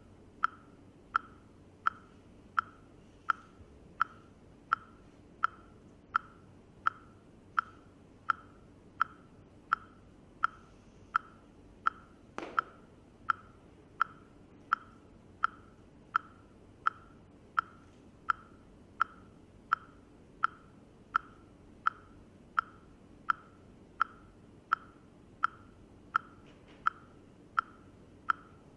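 Steady ticking pulse of short, sharp clicks, about 80 a minute, like a metronome beat. One softer knock falls about halfway through.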